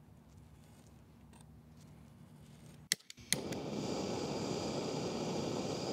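Gas torch being lit: two or three sharp ignition clicks about three seconds in, then the flame's steady hiss as it burns leather strips in a small crucible.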